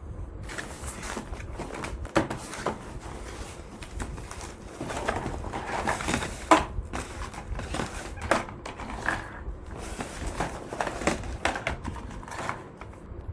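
Irregular crunching and scraping clicks over a low steady hum.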